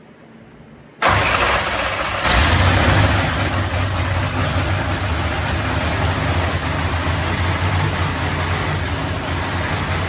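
Proline Hemi V8 race engine firing up: it starts suddenly about a second in, catches and gets louder a second later, then runs steadily at idle.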